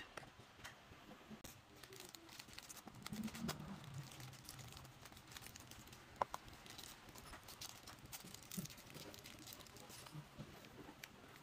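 Clear plastic parts bag crinkling and rustling as it is handled and emptied, with small plastic and metal kit parts clicking and tapping as they are set on a cutting mat. One sharper click about six seconds in.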